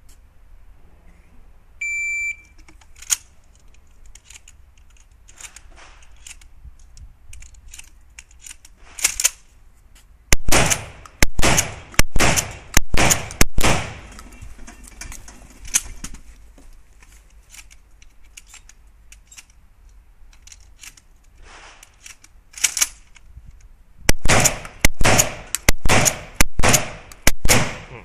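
Shotgun firing trap loads in two quick strings of about five shots each, the shots under a second apart, with a lone shot between them. A short electronic beep sounds about two seconds in, and fainter clicks fall between the strings.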